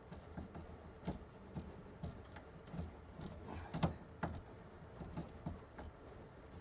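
Irregular light clicks and knocks of a hand tool tightening a cable terminal on a DC circuit breaker, the loudest about four seconds in.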